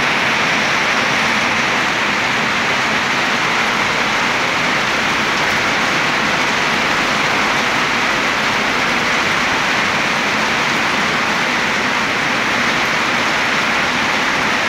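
Steady rain falling, an even, dense hiss that holds without a break.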